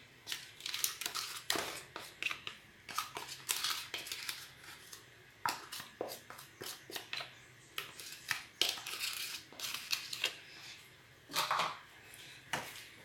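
Wooden spoon scraping butter out of a small bowl and knocking against a stainless steel mixing bowl: irregular scrapes, taps and clinks.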